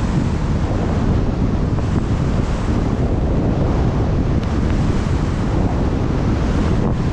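Steady rush of wind buffeting a GoPro's microphone as a skier runs fast downhill, mixed with skis sliding over snow.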